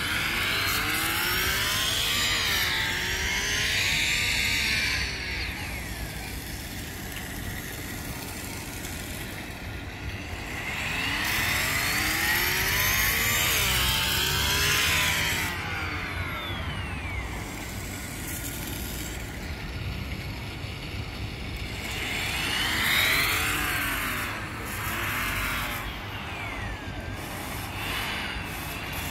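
Simulated race-car engine sound from the toy IndyCar's remote-control app, played through a phone speaker. It revs up and down three times, rising then falling in pitch each time, as the remote-controlled toy car is driven.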